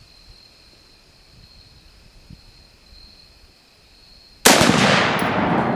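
One loud blast about four and a half seconds in: an AR-15 shot setting off a Tannerite-packed tennis ball, the rifle report and the explosion merging into a single bang. A long echoing rumble follows and dies away slowly.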